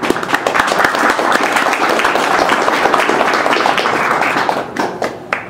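Audience applauding, thinning out to a few last claps near the end.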